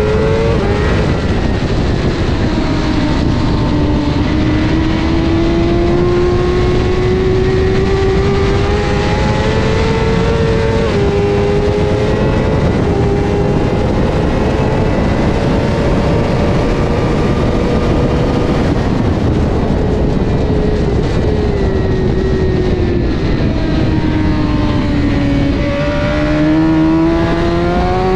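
Honda CBR1000RR superbike's inline-four engine at speed on track, its pitch climbing steadily with small steps at the gear changes, then falling as the bike slows and rising sharply again near the end. A constant rush of wind noise runs underneath.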